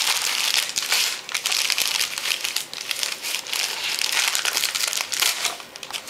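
Christmas wrapping paper crinkling and crackling as a dog worries at a wrapped present with its muzzle, in busy, uneven bursts with short lulls.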